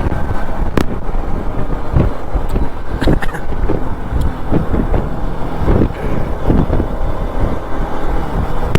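Motorcycle riding along a road: steady engine and road noise, strongest at the low end, with frequent short knocks and thumps throughout.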